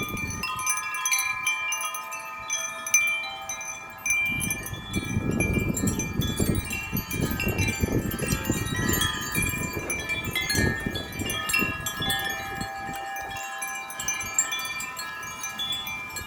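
Several hanging wind chimes ringing without a break in strong gusty wind, many overlapping tones sounding at once. A low rumble of wind buffeting the microphone rises about four seconds in and eases off by about twelve seconds.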